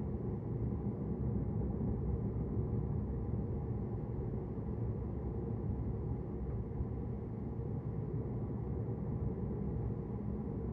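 Car driving at a steady pace: an even, low engine and road rumble with no change in speed or load.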